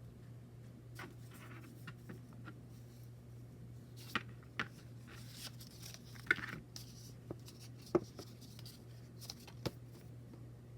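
Oracle cards being handled in a flip-through: soft card-stock rustles and scattered light taps and clicks, the sharpest about four, six and eight seconds in, over a low steady hum.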